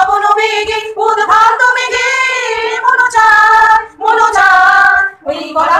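Women singing a slow Bengali song in long, held, gently wavering notes, with short breaks between phrases.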